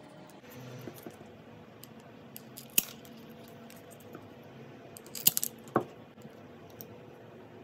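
Pruning shears cutting through a wooden popsicle stick: a sharp crack a little under three seconds in, then the loudest cluster of cracks and clicks just past halfway as the blades bite through the wood and snap shut.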